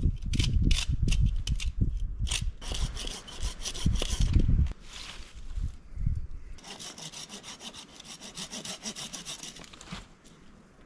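Small hand saw cutting through a dead wooden branch with quick back-and-forth strokes. The strokes are heavier and louder for the first few seconds, pause briefly about five seconds in, then go on lighter and steady.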